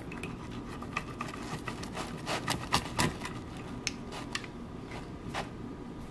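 A dull pizza-cutter wheel rolling and scraping through a baked pizza crust onto a wooden cutting board, giving irregular crunching scrapes and clicks. They come thickest in the first few seconds and thin out toward the end.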